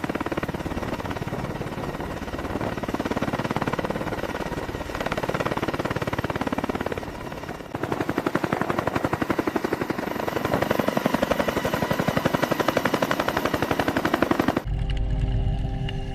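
A loud, rapid mechanical rattle, many strokes a second in an even rhythm. Near the end it cuts to a steady low hum with held tones.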